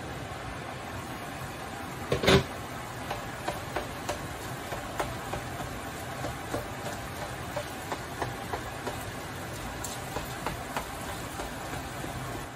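Diced potatoes frying in olive oil in a pan with a steady sizzle. About two seconds in the pan's glass lid clanks once, loudly. Then a slotted spatula stirs the potatoes with many light scrapes and taps against the pan.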